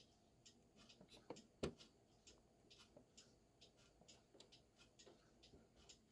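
Faint, irregular clicking from the Brother HL-2240 laser printer's paper-feed gear train as its motor is turned forward by hand, a slightly louder click about one and a half seconds in. The gears are skipping over a piece of white plastic jammed in them, the cause of the printer's thumping when it feeds paper.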